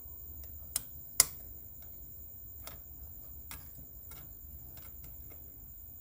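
Small sharp clicks of metal tweezers working at an LED bulb's circuit board and metal housing while pulling out the wires: two louder clicks near the start, then scattered fainter ticks.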